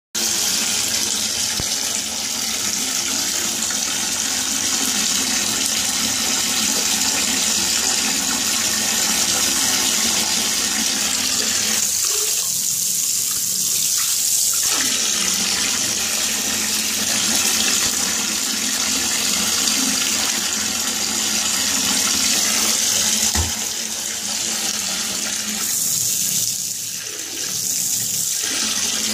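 Bathtub tap running steadily, its stream splashing onto a small hand-held waterproof speaker and into the tub water below. The rush of water dulls briefly twice.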